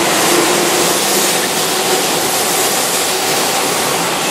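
Keihan Electric Railway commuter train running past a station platform: a steady, loud rush of wheels on rail and passing cars.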